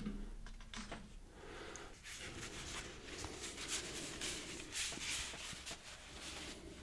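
Paper note cards rustling and sliding against one another as they are handled and fanned out, a soft crisp rustle with a few small clicks.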